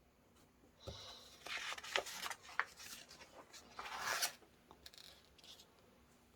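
Paper rustling and rubbing on a desk, with a few light clicks and knocks, for about three and a half seconds.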